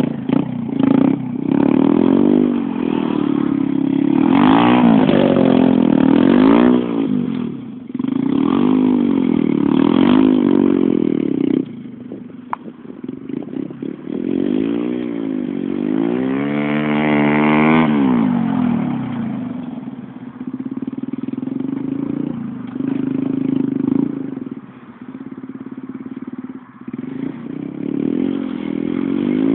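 Small motorcycle engine revving up and down again and again as it is ridden, each rise and fall lasting a second or two, with quieter, lower stretches a little before the middle and again later on.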